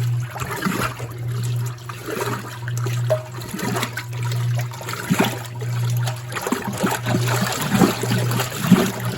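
1960s Lady Kenmore wringer washer agitating a load of clothes: a low motor hum with water sloshing and splashing in the tub, swelling and easing in a regular rhythm about once a second with the strokes of the agitator.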